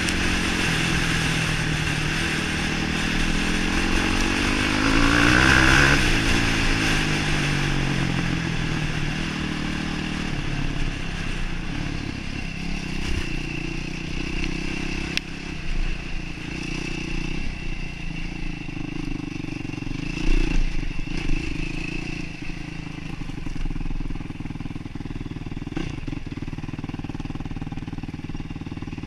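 Yamaha YFZ450R sport quad's single-cylinder four-stroke engine running on a dirt trail. It revs up and falls back about five seconds in, then runs more evenly at lower revs, with a few knocks around twenty seconds in.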